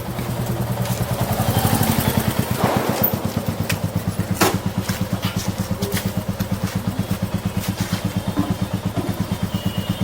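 A motor vehicle's engine idling, a steady low throb of about six or seven even pulses a second, with a few short sharp clicks over it.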